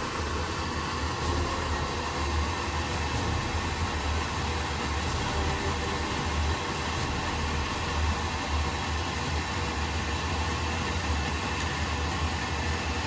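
Residential oil burner starting up abruptly, then running steadily: its blower motor and fuel pump give a rushing whoosh of air over a low hum. The burner has a failing ignition transformer that keeps cutting out, so the atomized oil may not be lighting.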